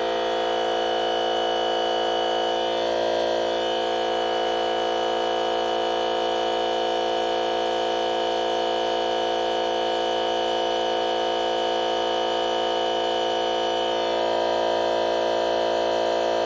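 DeWalt FlexVolt 60V cordless 2.5-gallon air compressor running steadily, its motor-driven pump building the tank back up to pressure. A constant mechanical drone with a slight swell about three seconds in and again near the end.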